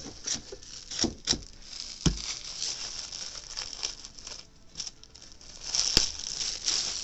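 Clear plastic wrapping on a bolt of quilting fabric crinkling as it is handled and pulled at, with a few sharp knocks along the way.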